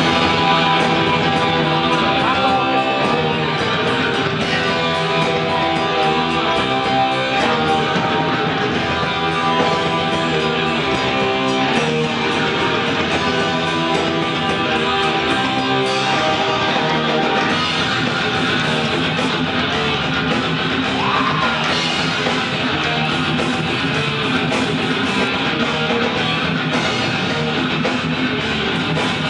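Heavy metal band playing live, with guitar to the fore.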